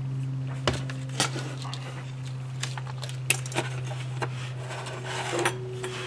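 Sharp clicks and taps of a small plastic doorbell push-button case and its circuit board being handled and set down on a wooden desk, about half a dozen spread over a few seconds, over a steady low hum.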